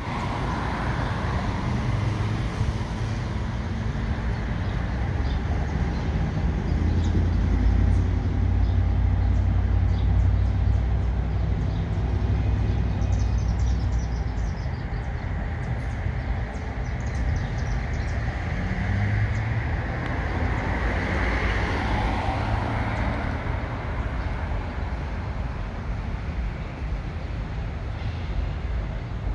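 New Jersey Transit commuter train running on the elevated tracks: a steady low rumble that builds to its loudest about a quarter of the way in, then eases off.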